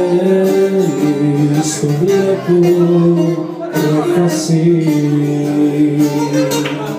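Live Greek folk song: a man sings long held, gently bending notes, accompanied by a bouzouki and an acoustic guitar.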